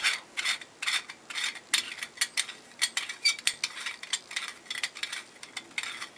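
Chrome sink drain flange being unscrewed by hand from the threaded brass drain body: a string of small, irregular metal clicks and scrapes, several a second.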